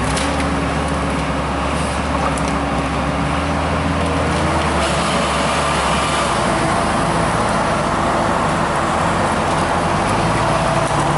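The engine of a small ESCH log skidder running steadily as the machine drives, hauling a grapple-load of logs. Its engine note rises a little about halfway through.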